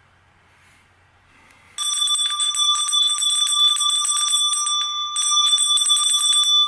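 Small hand-held metal bell shaken rapidly, its clapper striking many times a second so it rings continuously. It starts about two seconds in, breaks off briefly about two-thirds of the way through, then rings on.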